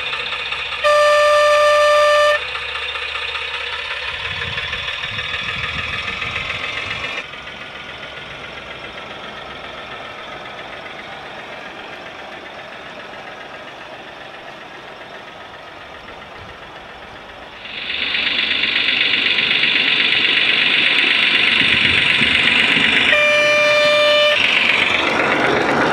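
Speaker of a DigiSound sound card in a Gauge 1 model Class 03 diesel shunter: a single-tone horn blast about a second in, then the simulated diesel engine running as the loco moves off with its wagons. The engine sound drops lower around the middle and comes back louder near the end. A second horn blast follows shortly before the end.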